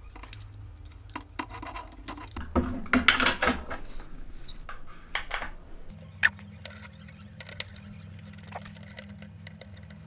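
Clicks and scrapes of plastic parts as the grille and cover of a small Bluetooth speaker are pried off with a screwdriver, then sparse light ticks of the screwdriver working the screws in the speaker's plastic housing over a steady low hum.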